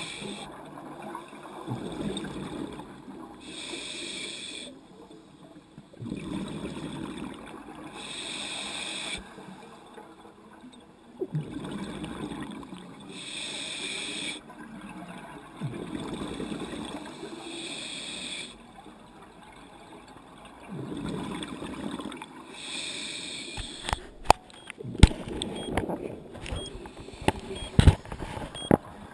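Scuba regulator breathing underwater, heard through a GoPro housing: a short hiss on each inhale alternating with a low gurgling rush of exhaust bubbles, about every four to five seconds. Near the end, a run of sharp knocks and clicks as the camera housing is handled.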